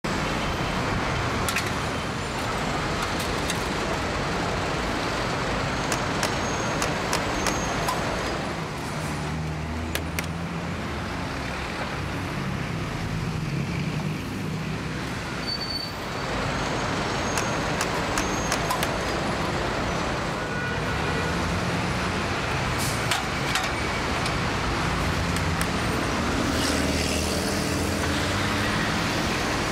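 Busy city street traffic: buses and cars running past with a steady rush, the low hum of heavy engines swelling and fading in two long stretches. A few sharp clicks or knocks stand out now and then.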